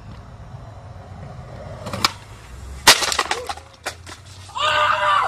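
A person falling: a knock about two seconds in, then a loud crash with cracking about a second later, followed by a few smaller clatters. Near the end a man starts screaming in pain from the injury of the fall.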